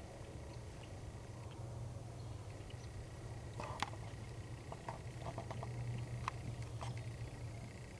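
Handling noise inside a fabric hunting blind: a cluster of clicks and scratchy rustles about halfway through, then a few scattered ticks, over a steady low rumble.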